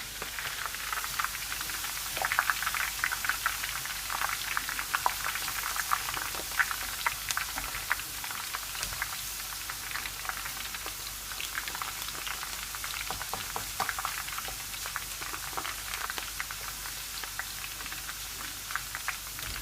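Shredded spring greens frying in hot oil: a steady sizzle full of quick crackling pops, busiest in the first several seconds.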